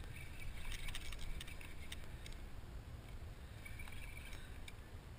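Wind rumbling on the microphone over open water, with short runs of light ticking from a fishing reel being cranked to retrieve the lure, about a second in and again near the end.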